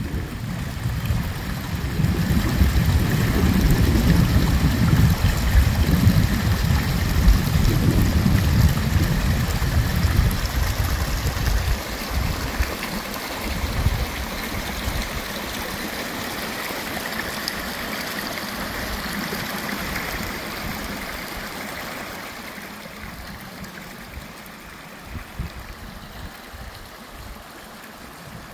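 Small forest stream running and rippling over the forest floor, a steady watery hiss that fades toward the end. A loud, uneven low rumble sits under it through the first half, then stops.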